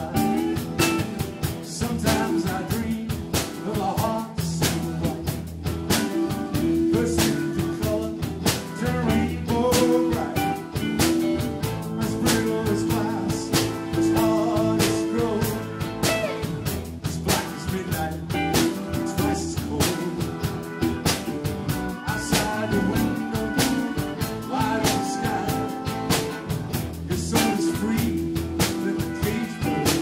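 A live jazz-blues band playing: electric guitar over a drum kit, with busy cymbal and drum strokes.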